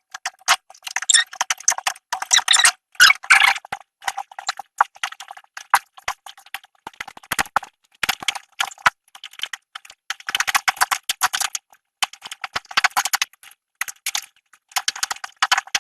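Metal door-knob hardware being handled and worked with a screwdriver: quick runs of irregular clicks and rattles with short gaps between them.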